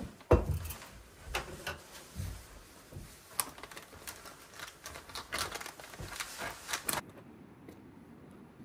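A metal mug knocked down onto a wooden table. Then a spoon stirs porridge oats and hot water in a plastic zip-lock bag, with crinkling plastic and scattered clicks and scrapes. About seven seconds in, this gives way to a faint steady hush.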